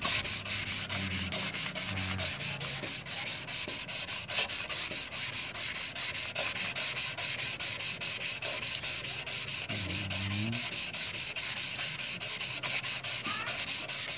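Sandpaper on a hand-held sanding block rubbed back and forth over hardened body filler on a steel panel: a steady rasping of quick, even strokes, about four a second. This is the filler being sanded flat and smooth, to get rid of pinholes before epoxy primer goes on.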